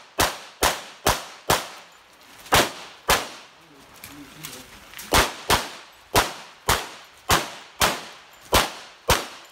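Single-stack 1911 pistol in .45 ACP firing a rapid string of about fourteen shots, mostly in quick pairs (double taps on each target), with short pauses between pairs as the shooter moves and transitions.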